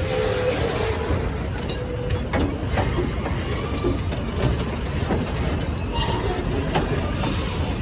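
Narrow-gauge train running on its departure: a steady low rumble with faint scattered clicks, and no horn sounding.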